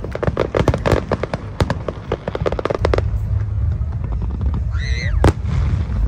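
Fireworks display: aerial shells bursting in a rapid run of crackling bangs for about three seconds, then a steady low rumble with one loud bang about five seconds in.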